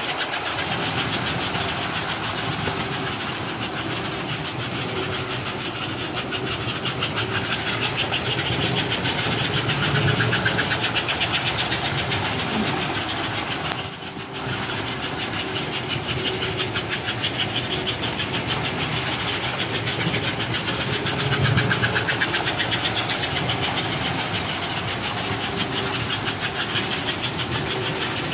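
Postwar American Flyer S-gauge toy steam locomotives running laps with their trains: wheels rattling over the sectional track and the locomotives' choo-choo units chuffing in a fast, even beat. The sound swells about ten seconds in and again a little past twenty seconds as a train passes close.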